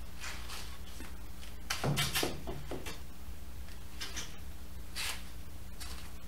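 Plywood cutoff being handled and set against a plywood wall: short wooden knocks and scrapes, the loudest cluster about two seconds in, over a steady low electrical hum.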